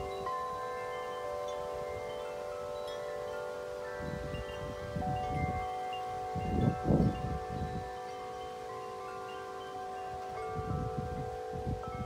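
Wind chime ringing in the wind, many long tones overlapping and sustaining. Gusts rumble on the microphone, loudest about seven seconds in and again near the end.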